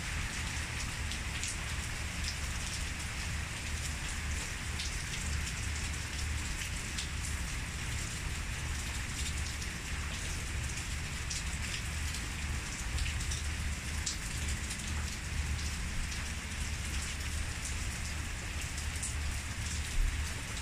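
Steady rain falling, a constant hiss with individual drops ticking close by. A low rumble runs underneath, with a brief bump near the end.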